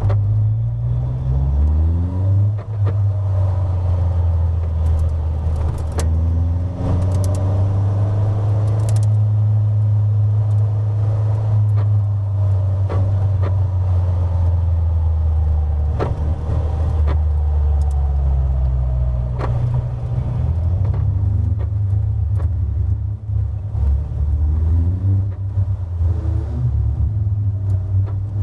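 Onboard sound of a Caterham Seven race car's four-cylinder engine running at low speed in a low gear. Its pitch rises several times as it picks up a little speed and drops back, with occasional sharp knocks.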